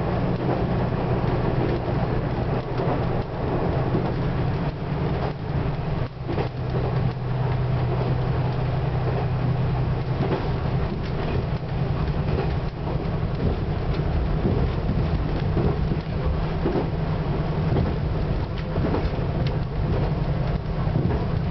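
Diesel railcar running at speed, heard from inside: a steady low engine drone with the clatter of wheels over the rails.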